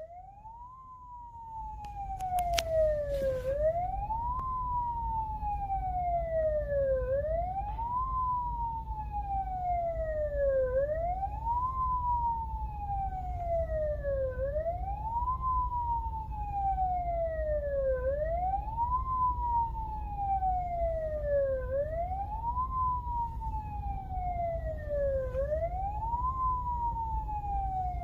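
Ambulance siren wailing, heard from inside a car right beside it. Each cycle is a quick rise in pitch followed by a slow fall, repeating about every three and a half seconds, over the low rumble of the car's engine and tyres. The siren grows louder over the first two seconds, and there are a few sharp clicks about two to three seconds in.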